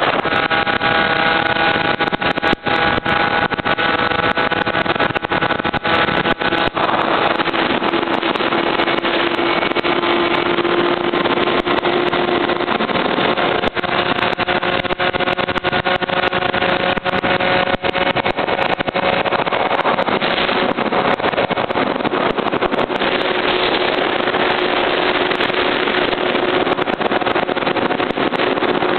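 Beta SM 50's two-stroke single-cylinder Minarelli engine running hard through a derestricted exhaust while riding, its pitch shifting a few times as it changes speed.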